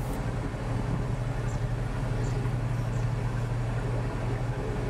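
Narrowboat's inboard diesel engine running steadily at slow cruising speed, a constant low hum.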